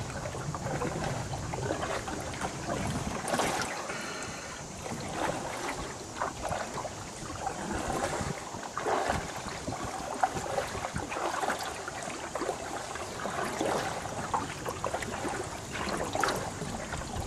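Kayak paddle strokes driving a canoe through flood water: the blades dip and pull with uneven splashes every second or two, and water trickles and drips off the paddle between strokes.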